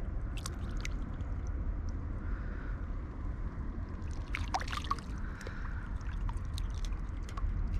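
River water running with a steady low rush and scattered small ticks and trickles, and a brief burst of splashing about four and a half seconds in.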